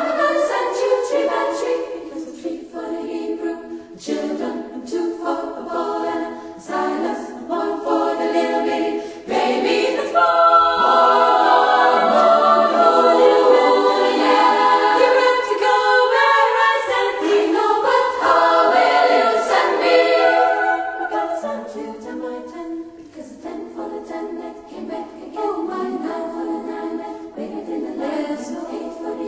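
Unaccompanied choir singing as background music. It swells louder through the middle and then falls back.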